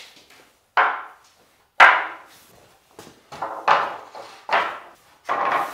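Pine fence pickets being laid down onto a wooden frame on a concrete floor: a series of about six wooden knocks and clatters, the loudest about two seconds in.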